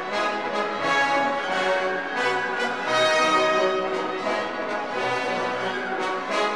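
Orchestral background music with brass to the fore, playing held notes.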